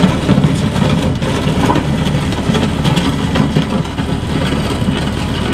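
LS compact tractor's diesel engine running as the tractor pulls its box blade along the dirt driveway, growing slightly quieter as it moves away.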